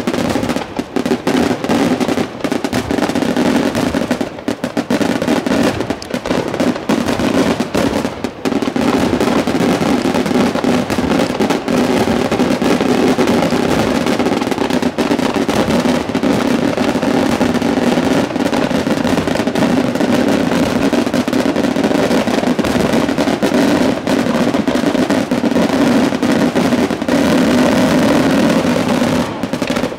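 Aerial fireworks going off in a continuous rapid barrage of shell bursts and crackle, a display's closing barrage, that cuts off suddenly near the end.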